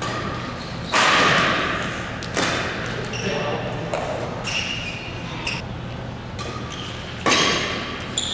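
Badminton rackets hitting a shuttlecock during a doubles rally: a loud hit about a second in, another about two and a half seconds in, and a loud one near the end, each echoing in the large hall. Short high squeaks come between the hits.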